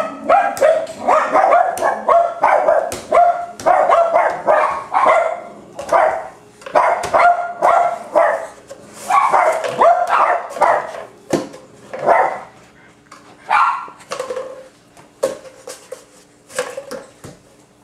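A dog barking over and over in short barks, several a second at first, then more spaced out over the last several seconds.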